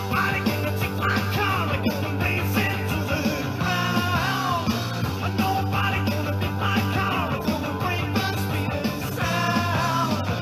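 A rock song playing, with a singing voice over the band.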